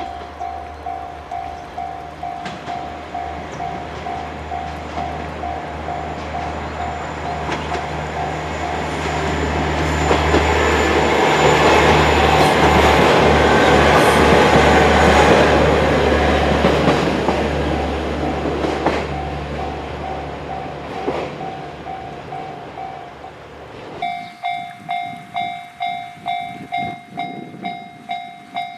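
Japanese level-crossing warning bell clanging about twice a second while the SL Yamaguchi train, hauled by the D51 steam locomotive, passes climbing a steep grade. The train's noise swells to its loudest about halfway through, then fades. Near the end the crossing bell is left ringing on its own, louder and brighter.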